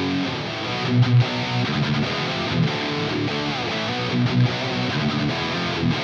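Distorted electric guitar played through a Bogner Snorkler 50 amp head. A held chord rings out at the start, then gives way to a riff of short, accented low notes.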